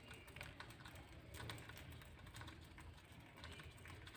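Faint, irregular light clicks and taps over a low steady background rumble.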